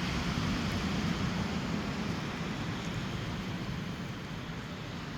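Steady rushing noise of sea surf, with wind on the microphone.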